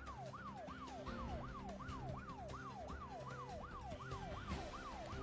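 Siren-like background sound effect of a breaking-news bulletin: a tone that repeatedly jumps up and falls in pitch, about three sweeps a second, over a low steady drone.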